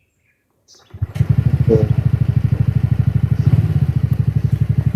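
A TVS Ntorq scooter's single-cylinder engine comes in suddenly about a second in and then runs steadily with a rapid, even pulsing beat.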